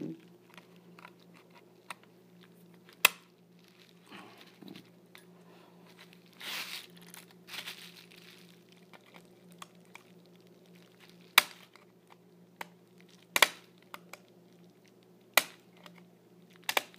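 Small nuts being tightened on a Lionel postwar train: scattered sharp metallic clicks and taps of a hand tool on the nuts and metal frame, with a couple of brief rustling scrapes. A faint steady low hum lies underneath.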